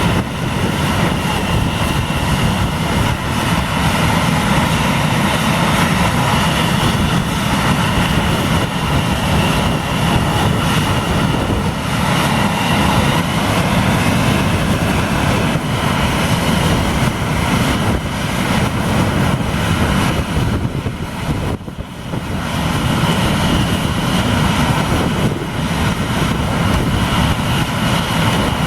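Airliner's engines at takeoff power: a loud, steady noise with a whine in it, dipping briefly about three quarters of the way through.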